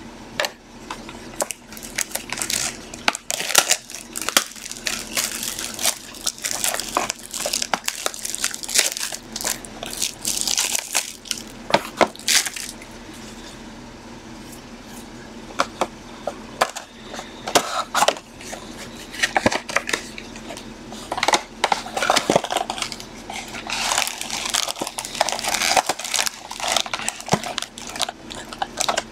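Plastic shrink wrap crinkling and crackling as a sealed hobby box of trading cards is torn open by hand, with sharp crackles throughout and a brief lull about halfway. Near the end, cardboard and foil packs rustle as the opened box is handled.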